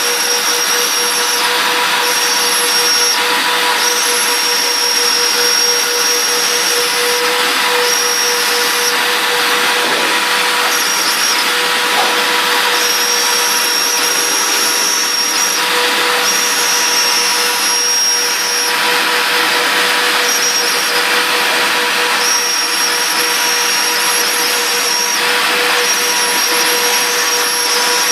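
Twin high-speed router spindles of a CNC machine running at about 30,000 rpm, a 1.5 mm mill cutting through two stacked sheets of 3 mm poplar plywood. A steady whine and cutting hiss carry throughout, with a higher whine that switches on and off every few seconds as the machine moves between cuts.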